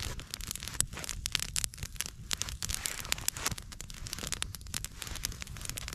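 Small campfire of dry twigs crackling as it burns, with many quick, irregular sharp snaps and pops over a low rush of flame.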